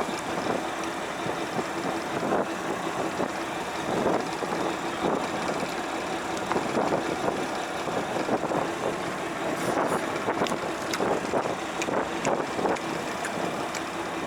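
Fishing boat's engine running steadily, with water and wind noise and scattered knocks and clatter on board.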